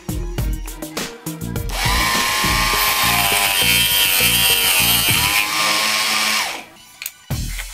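Homemade 12-volt miter saw, a 775 DC motor belt-driving a small circular blade, running and cutting through a thin wooden strip for about five seconds, its whine dipping as the blade bites, then cutting off. Background music plays underneath.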